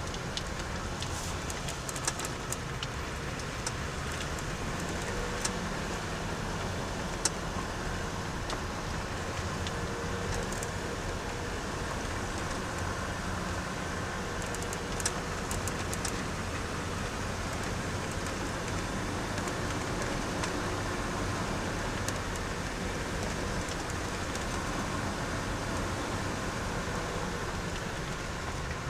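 Car driving off-road, heard from inside the cabin: steady engine and tyre noise, with a few sharp clicks and knocks in the first half.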